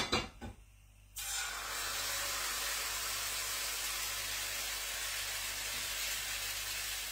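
Pancake batter frying in coconut oil in a hot pan, a steady sizzling hiss that starts suddenly about a second in. A sharp knock at the very start is the loudest sound.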